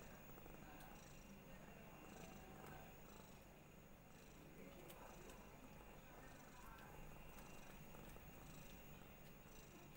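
Domestic cat purring softly and steadily while being stroked.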